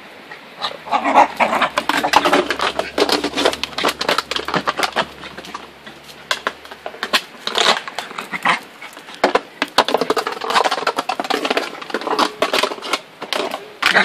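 Small dog barking excitedly in quick, repeated yaps, starting about a second in and going on with only brief pauses.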